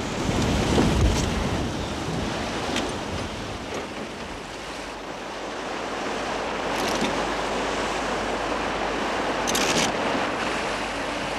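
Wind and water rushing and splashing along the hull of a Dutch sailing barge under way, with a louder surge about a second in and two brief sharp sounds later on.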